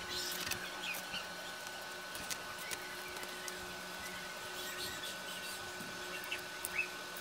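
Craft-knife blade cutting through corrugated cardboard: faint, scattered clicks and scratches as the blade is worked around the drawn outline, over a steady high-pitched background whine.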